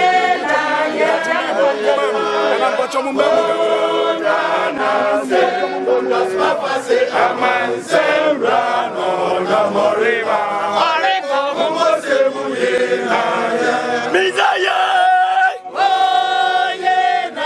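A crowd of marchers chanting and singing together as a group, with a brief break in the singing near the end.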